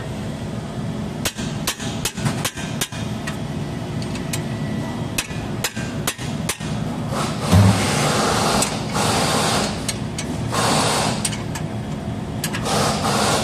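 A hammer striking a wrench on a brake caliper bracket bolt, with sharp metal knocks coming at an uneven pace through the first six seconds or so. These are followed by a heavier thud and several stretches of rough, scraping noise while the bracket is handled.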